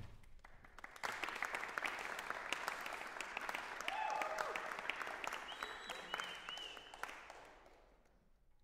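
Audience applauding in a hall, starting about a second in and dying away near the end. A short call or two from the audience rises over the clapping in the middle.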